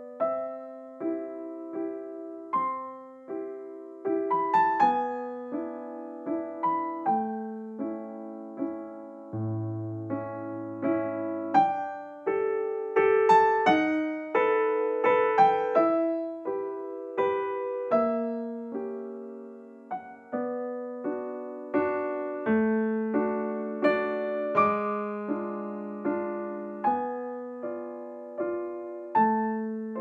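Background music: solo piano, notes and chords struck and left to fade, a few to the second.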